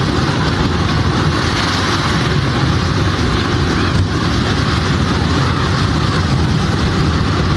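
Hurricane wind blowing hard and continuously: a loud, even rush of noise with no breaks.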